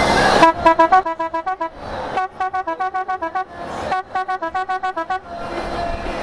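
Musical car horn playing a quick tune of short beeping notes, in three phrases about a second long with short pauses between.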